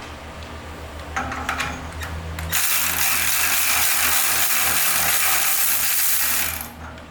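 Electric ratchet running for about four seconds, spinning a bolt off the exhaust manifold-to-muffler flange. A few light metallic clicks come before it.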